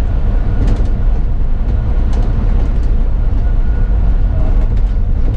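A bus running on the road, heard from on board: a steady, loud low engine and road rumble.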